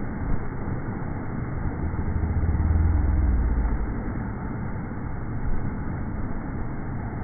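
Strokkur geyser erupting, played at one-eighth speed: the rush of water and steam is drawn out into a deep, steady rumble. The rumble swells louder about two to four seconds in.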